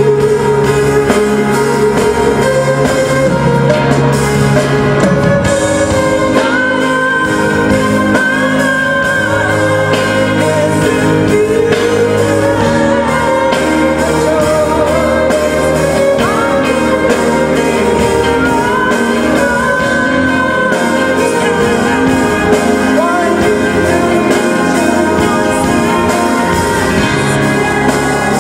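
A live band playing a song with a singer carrying the melody, the voice coming in a few seconds in over steady guitar and other instruments.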